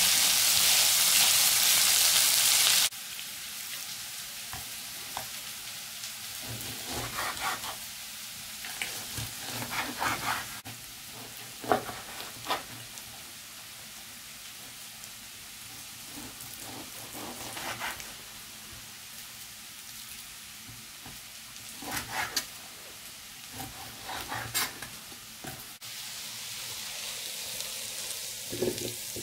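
Diced onion and carrot sizzling in oil in a frying pan while a spatula stirs them. After about three seconds this gives way to a knife slicing raw pork on a wooden chopping board, with scattered knocks of the blade on the board. Near the end the frying sizzle comes back.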